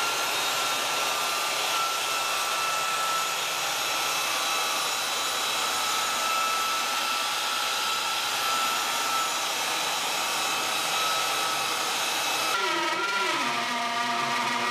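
A handheld electric sander running steadily on a wooden countertop. About twelve seconds in it gives way to a router cutting wood, its pitch dipping and then settling lower as it takes the load.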